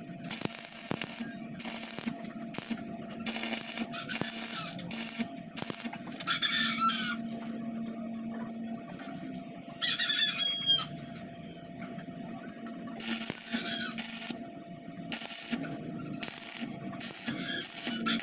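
Stick (arc) welder tacking steel flat-bar floor supports onto a tricycle sidecar frame: a run of short crackling bursts of arc, each under a second, over a steady low hum. A chicken clucks briefly a couple of times.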